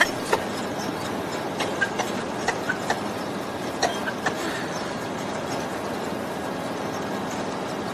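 Steady mechanical din of industrial machinery running, with scattered light clicks and knocks.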